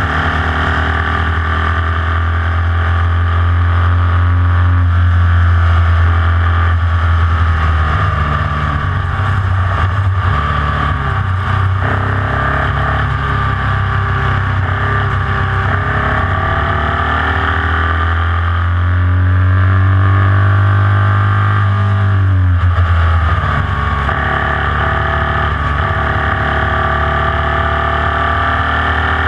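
Onboard sound of a Formula Vee's air-cooled Volkswagen flat-four engine running hard at racing speed. The engine note climbs steadily for several seconds, then drops sharply about two-thirds of the way through, as on a lift or gear change.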